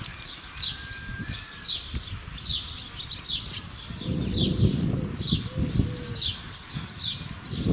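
A small bird chirping over and over, short falling notes about twice a second. About four seconds in, a low rumbling noise swells for a second or so, louder than the chirps.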